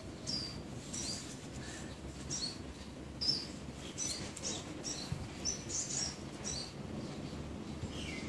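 Small birds chirping, short high chirps coming about one or two a second, over a steady low background rumble.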